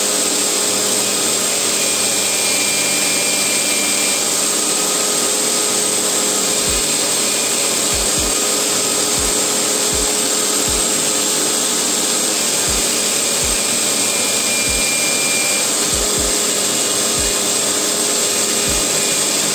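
Electric drill clamped in a vise running steadily, spinning a cloth buffing wheel as the knife's metal finger guard is held against it and polished.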